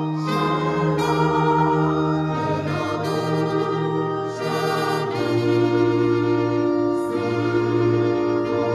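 Church choir singing a hymn in long held chords with instrumental accompaniment, the chords changing every couple of seconds.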